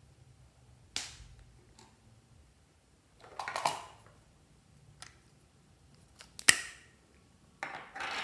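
Metal lipstick tubes being handled: sharp clicks of caps and cases snapping and knocking, the loudest past the middle, with two short scraping rustles.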